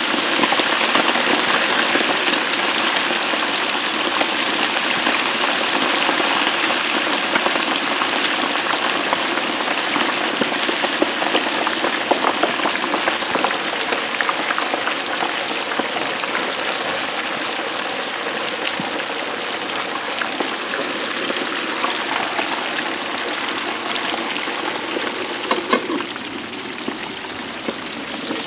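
Hot peanut oil in a turkey fryer pot bubbling and sizzling hard around a whole turkey just lowered in, easing off slowly. Near the end a couple of metal clinks as the lid goes on the pot, after which the sizzle is duller.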